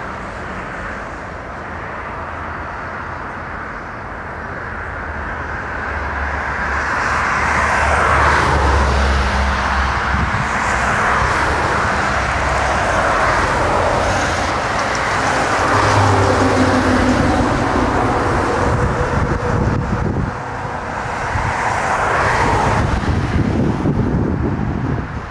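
Twin-engine jet airliner at takeoff thrust: a steady jet roar that builds over the first several seconds as it accelerates and lifts off, stays loud, and briefly drops before swelling again near the end.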